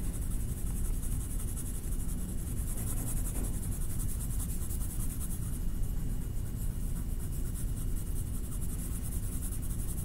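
A colouring stick scratching across paper in quick, repeated strokes, blending a second colour over the first.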